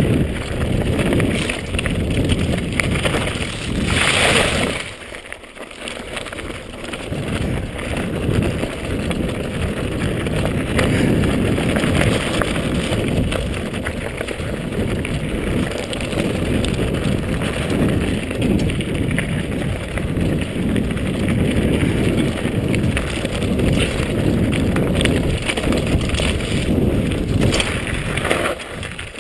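Wind buffeting the microphone of a camera on a mountain bike descending fast, mixed with the rumble and rattle of the tyres and bike over a rocky trail. The noise eases briefly about five seconds in.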